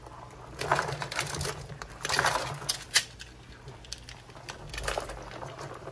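Live land crabs rustling and clattering in a plastic bucket as kitchen tongs grab them, their shells and the tongs knocking together in a few scraping bursts with a sharp click about three seconds in.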